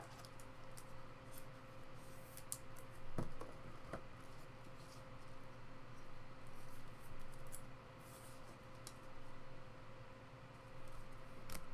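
Faint handling of a trading card being slid into a rigid plastic top loader: soft plastic rustles and small scattered clicks, with a sharper click near the end.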